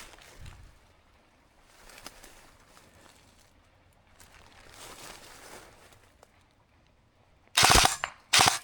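Quiet rustling of movement through brush, then two short, loud bursts of airsoft electric rifle (AEG) fire near the end.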